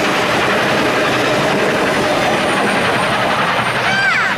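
Union Pacific passenger cars of a steam excursion train rolling past at close range, a steady rushing rumble of wheels on rail. A brief high-pitched glide sounds near the end as the last car goes by.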